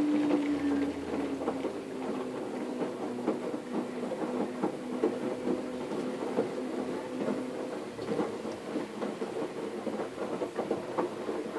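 Waveforce 14 kg top-loading washing machine agitating a load of jeans in soapy water: a steady motor hum under water swishing and many small splashes. The hum drops away about eight seconds in, leaving the swishing.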